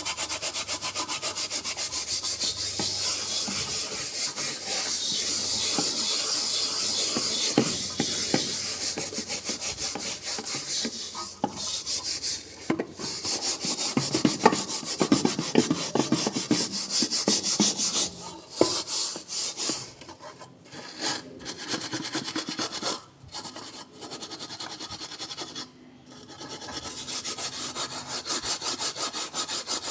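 Hacksaw blade bent into a ring scraping burnt-on crust off a wok: a rapid, rasping scrape of metal on metal, breaking off briefly several times in the second half.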